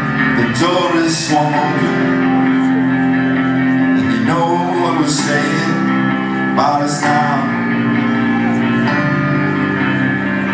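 Live rock band playing: sustained guitar chords ringing steadily, with a man singing a few short phrases over them.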